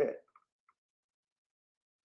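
A man's voice finishing a word, then dead silence with two faint ticks just after.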